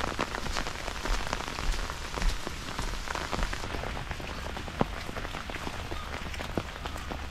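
Steady rain falling, with many sharp drop hits close to the microphone.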